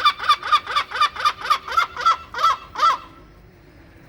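A gull's long call: a rapid run of repeated calls, about four a second, spacing out slightly toward the end and stopping about three seconds in.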